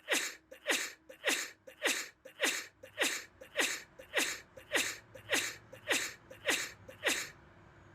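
A rapid, evenly spaced run of about thirteen short sneezes, roughly two a second, each with a falling pitch. The run stops shortly before the end.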